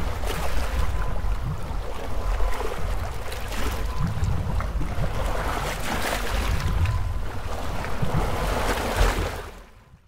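Ocean waves recorded underwater: a deep, steady rumble of surging water with crackling, fizzing bubbles over it. It fades out in the last second.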